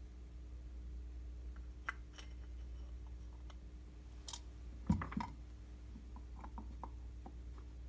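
Scattered light clicks and small taps of metal carburetor parts being handled, with one louder knock about five seconds in, as the float bowl is fitted back onto the Mikuni carburetor body. A steady low hum runs underneath.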